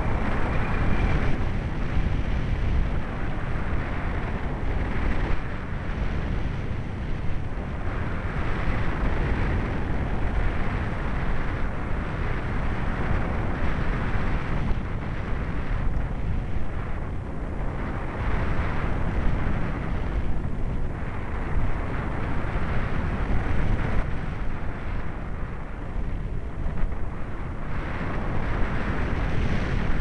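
Wind rushing over the microphone of an MD80 microcam in flight on a model plane: a dense, buffeting noise that swells and eases every few seconds.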